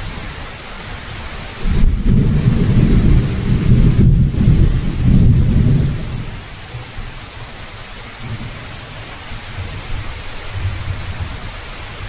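Heavy rain falling steadily, with thunder: a loud rumble starts about two seconds in and lasts some four seconds, then fainter rumbles come near the end.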